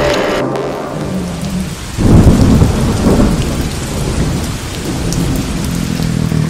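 Steady rain hiss, with a loud low rumble of thunder that breaks in about two seconds in and slowly fades.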